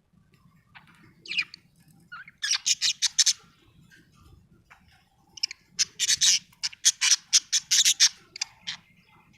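Budgerigar chirping in short, quick runs of sharp high chirps, with a few single calls in between; the longest and loudest run comes in the second half.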